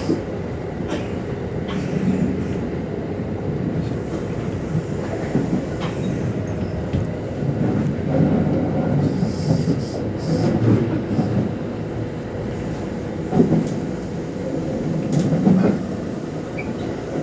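Running noise heard inside a Kintetsu electric train car: a steady rumble of wheels on rail, with occasional clicks and knocks from the track.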